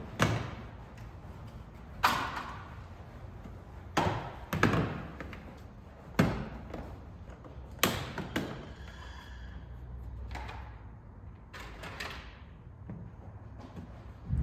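A series of sharp knocks and thuds, roughly one every two seconds, the kind made by parts being handled and pressed into place. A faint whine sounds briefly near the middle.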